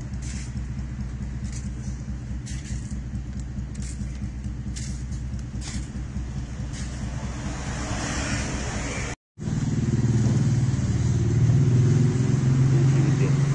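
Motor-vehicle engine hum from street traffic, with a few light clicks over the first few seconds. The sound cuts out briefly about nine seconds in and comes back as a louder engine hum with a steady low drone.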